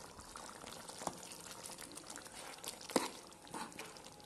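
A pan of thick prawn curry simmering gently, with soft bubbling pops and plops as fresh coconut paste sits in it. A sharp click of the steel spoon against the pan comes about three seconds in.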